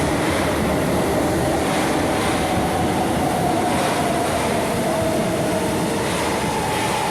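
São Paulo Metro Line 2 train running through the station: a steady rumble of wheels on rail with a faint motor whine that shifts slightly in pitch.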